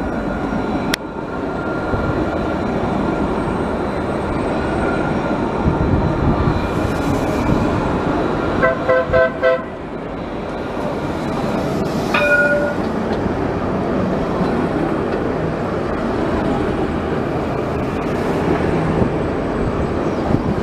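Alstom Citadis light rail tram rolling past at close range, a steady running noise of wheels on rails, with a quick run of about four short horn toots a little before midway and one more short tone a few seconds later.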